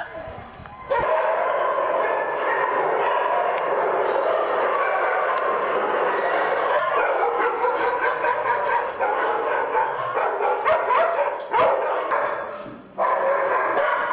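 Many shelter dogs barking, yelping and whining at once in their kennels: a continuous overlapping din that breaks off briefly near the end.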